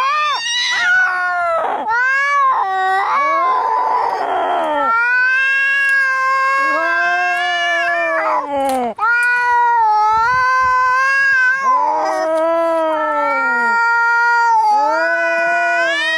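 Angry cats caterwauling in a fight: long, drawn-out, wavering yowls one after another, with a hiss between about three and five seconds in.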